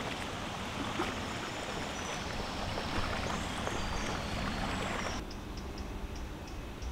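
Kayak paddle strokes splashing and water rushing around a kayak moving down a river. About five seconds in the water noise cuts off suddenly, leaving a quieter background with faint high ticks about three a second.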